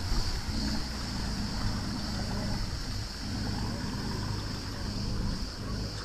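Tour boat's engine running with a steady low hum, mixed with wind and water noise on the phone's microphone. A constant high-pitched hiss runs underneath.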